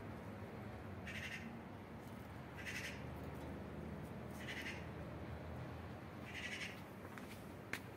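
Short animal calls repeated four times, one every second and a half to two seconds, each brief and high-pitched; a single sharp click near the end.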